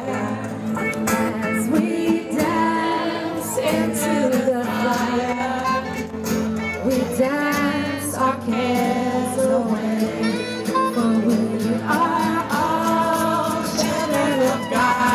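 Live acoustic band music: a woman singing into a microphone over strummed acoustic guitars.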